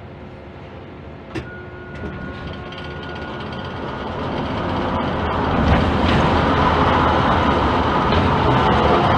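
Ship-to-shore container crane running as its spreader is lowered into a ship's hold, heard from the operator's cab: a sharp click a little over a second in, then a rumbling machine noise that swells over the next few seconds and holds steady and loud.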